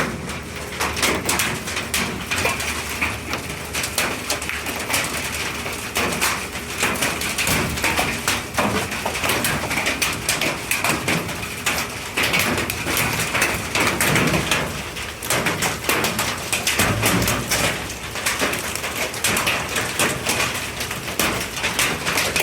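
Hailstones of nickel and pea size, mixed with rain, pelting down in a dense, steady clatter of many small impacts over a constant hiss of rain.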